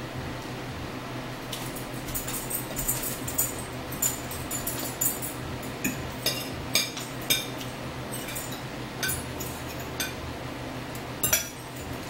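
Metal forks clinking and scraping against plates and a bowl while two people eat: a scattered string of short, sharp clinks, with a quick double clink near the end.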